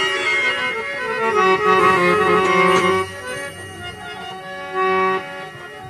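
Instrumental interlude of a devotional bhajan: a harmonium plays a melody of held notes, softer after about three seconds.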